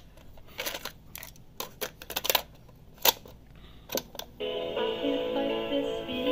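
Sony TCM-929 cassette recorder's mechanical transport keys clicking and clacking several times as they are worked. After the PLAY key goes down about four seconds in, music from the tape comes back on through the recorder's small built-in speaker.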